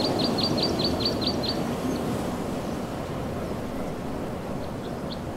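Steady rush of sea surf and wind. Over it a small bird gives a quick series of high, falling chirps, about four a second, for the first second and a half, then a few more near the end.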